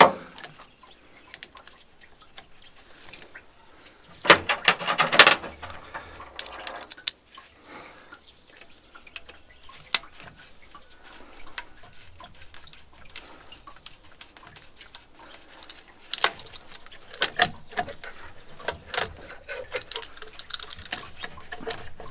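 Gloved hands working a hose and fittings loose on a VW T3 Transporter's 1.6 diesel engine. Scattered clicks, knocks and rattles, with a louder clattering burst about four seconds in and a run of sharp clicks from about sixteen seconds.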